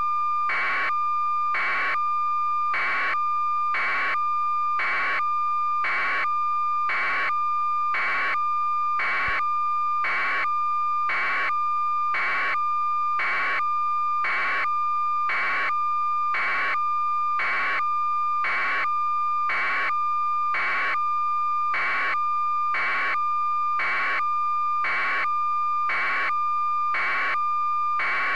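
A steady electronic tone with a regular beep pulsing over it, about four pulses every three seconds, unchanging throughout.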